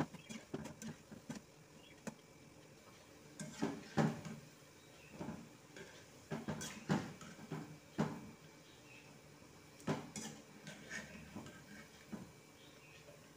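Metal slotted spoon knocking and scraping irregularly against an aluminium kadai while turning wheat-flour and jaggery balls, over a faint sizzle of the balls deep-frying in hot oil.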